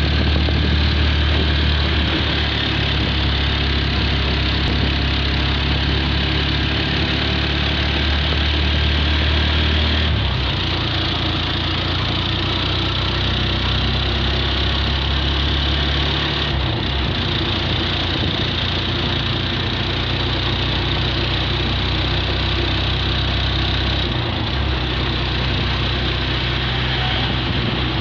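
An engine running steadily: a low hum under a constant hiss, which shifts abruptly about 10, 16 and 24 seconds in.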